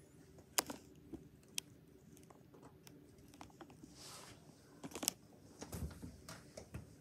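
Faint scattered clicks and light taps from handling around a plastic tub, with a brief rustle about four seconds in and a couple of dull thumps near the end.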